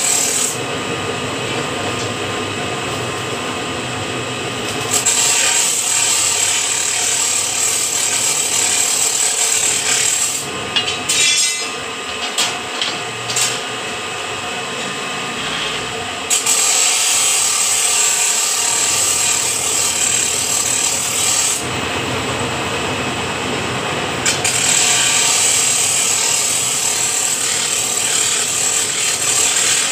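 Electric scroll-bending machine running, its rotating die curling a square steel bar into a scroll: a steady mechanical running noise that eases off for a few seconds in the middle, between bends.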